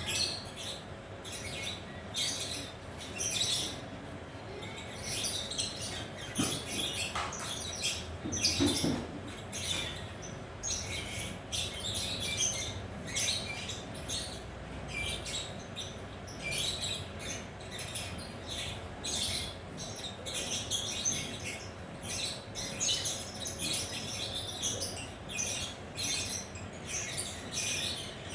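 Lovebirds chirping and chattering in a long run of quick, high-pitched call bursts.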